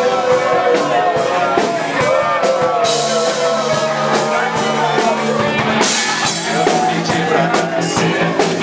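Live rock band playing: drum kit with cymbal crashes about three and six seconds in, bass and guitar, and a voice singing over them.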